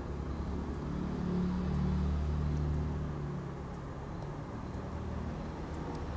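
A low rumble that swells about a second in and eases off again by about three seconds.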